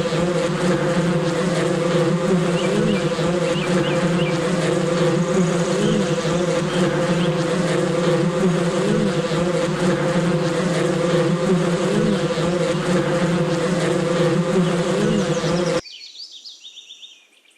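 Wasps buzzing: a steady, continuous drone whose pitch wavers slightly. It stops abruptly near the end.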